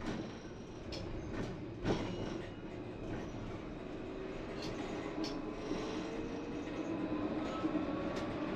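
Lyon T1 tram running on its rails, a steady rumble broken by a few sharp clicks as the wheels pass rail joints and points. A faint whine rises slowly in pitch in the second half as the traction motors speed the tram up.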